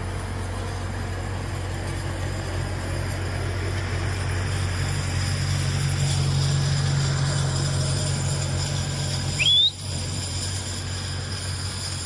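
A tractor engine running steadily with a low hum that swells a little in the middle. About three quarters of the way through, a short, loud rising whistle cuts in.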